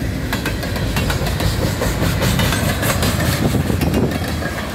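Freight cars rolling past close by: a steady rumble of steel wheels on the rails, with rapid sharp clicks and a rattling from the wheels.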